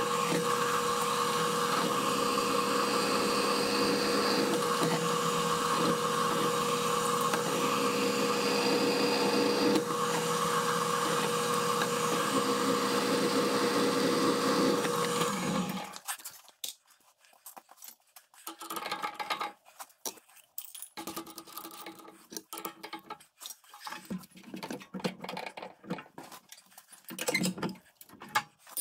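Drill press running and drilling pilot holes through 1/2-inch flat bar with a 1/4-inch bit: a steady motor hum with one held tone under the cutting noise. It stops about sixteen seconds in, and after that there are only short scattered clatters and brief bits of machine noise.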